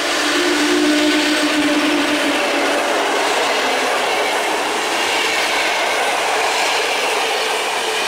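PKP EP07 electric locomotive pulling a passenger train away from a station and passing close by, with a steady hum for the first couple of seconds. Then the passenger coaches roll past on the rails.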